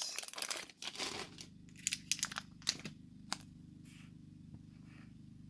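Foil Pokémon booster pack wrapper being torn open and crinkled: a quick run of crackles and rips, dying away after about three seconds to a faint steady hum.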